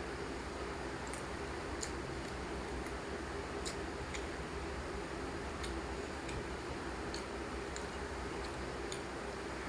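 Soft mouth clicks and chewing of someone eating rice and fish curry, a faint click every second or so at irregular intervals, over a steady background hum.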